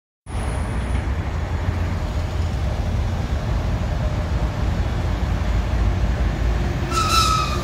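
Steady low rumble as an EP1M AC electric locomotive approaches with a passenger train. Near the end the locomotive sounds its high-pitched whistle, one tone that falls slightly in pitch and runs on, sounded as a greeting by the crew.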